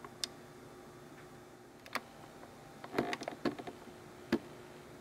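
A few scattered light clicks and knocks over a faint steady hum, with a quick cluster of several about three seconds in and a single sharper knock a little over four seconds in.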